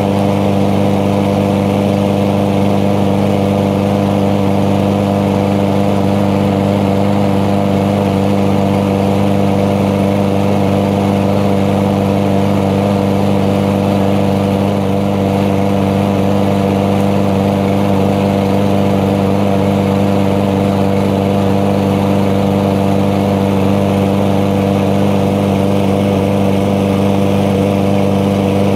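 Petrol lawn mower engine running loud and steady at a constant speed, with no change in pitch.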